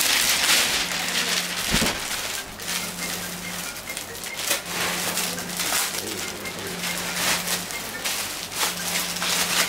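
Clear plastic packaging crinkling and cotton fabric rustling as a suit piece is unwrapped and spread out by hand, with a soft thump about two seconds in.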